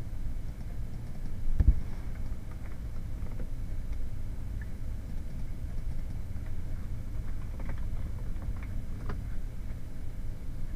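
Scattered computer keyboard keystrokes and mouse clicks over a steady low hum, with one louder knock about one and a half seconds in, as numbers are typed into a dialog.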